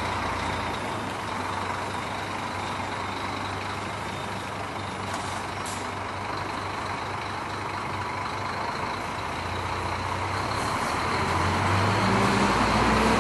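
Scania 440 truck's diesel engine running at idle, a steady hum that grows louder over the last few seconds.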